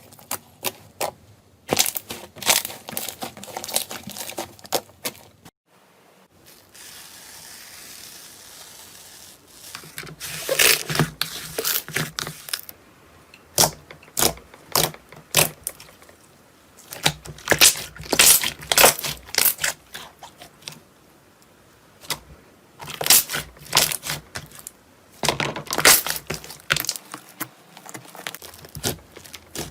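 Slime being pressed and worked by hand, giving clusters of sharp crackling pops with short quiet gaps between them. A few seconds of soft hiss comes about a quarter of the way through.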